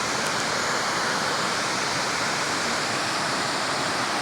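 Creek water rushing steadily down a low, sloping waterfall over shale, running full after days of rain.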